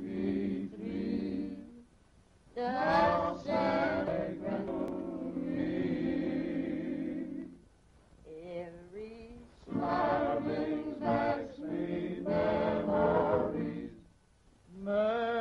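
A choir singing in long held phrases, broken by short pauses about two seconds in, around eight seconds, and near the end.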